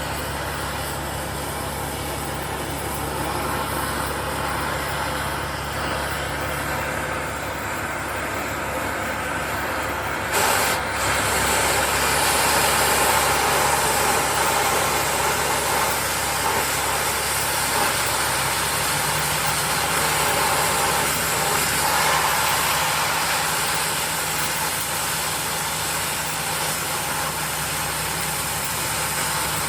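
Oxy-fuel cutting torch hissing, growing louder and harsher about ten seconds in as it cuts through half-inch steel plate, with an engine idling steadily underneath.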